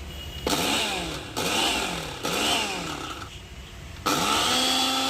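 Premier KM521 mini spice grinder's 350 W motor pulsed on three times in short bursts about a second apart, its pitch swooping with each spin-up and run-down, then switched on continuously about four seconds in and held at a steady whine.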